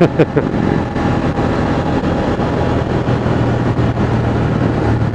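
Ducati Monster 620's air-cooled L-twin running steadily at cruising speed, with wind rush over the microphone.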